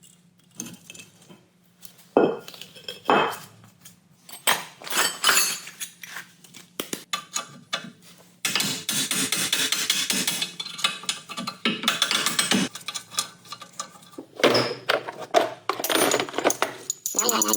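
Metal hand tools and steel parts clanking and clinking during a wheel bearing replacement on an Audi A6 hub: separate knocks, then a few seconds of continuous clatter past the middle, then more knocks.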